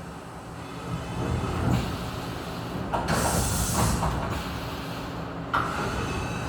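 UGINT UT650 vertical machining center running, a steady mechanical hum. About three seconds in, a loud hiss starts suddenly and cuts off just over a second later.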